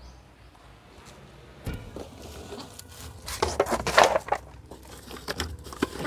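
Knocking, scraping and rustling as things are handled and pulled out of a car's interior: one sharp knock a little under two seconds in, a cluster of scrapes and rustles around the middle, and another knock near the end.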